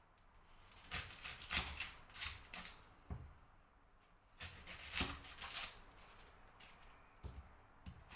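An onion being handled and prepared: scattered crackling and light taps in two clusters, about a second in and again around four and a half seconds in, thinning out near the end.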